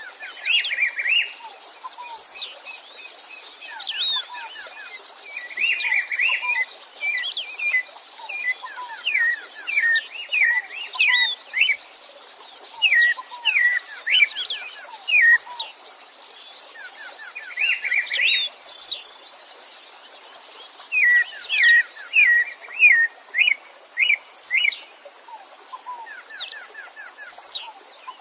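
Several songbirds singing at once: a high, thin whistle falling steeply in pitch repeats every two to three seconds over busy phrases of quick chirps and trills.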